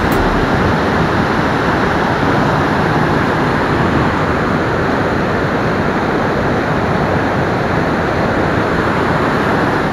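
Whitewater cascade of a mountain creek rushing over granite ledges and boulders, a steady loud rush of water.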